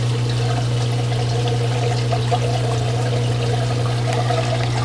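Aquarium overflow water pouring and trickling steadily down through the filter, over a steady low hum.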